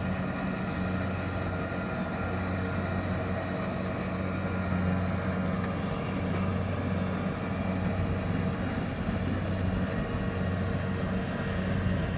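Kubota DC-70 Plus combine harvester's diesel engine running steadily at a constant pitch.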